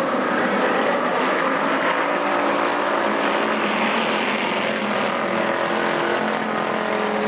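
A pack of pure stock race cars at speed, many engines running at once in a steady drone, with several engine notes overlapping and shifting in pitch as cars come through the turn.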